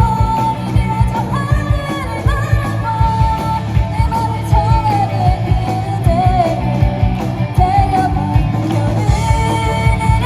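Live band playing a pop-rock song: a lead vocal sings the melody over guitar, bass and a steady drum beat.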